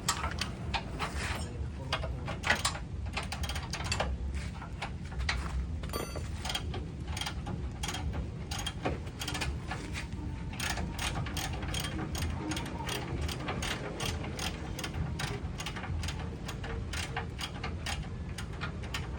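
Hand ratchet wrench clicking as it is worked on a bolt: a long run of sharp, fairly even clicks, about three to four a second.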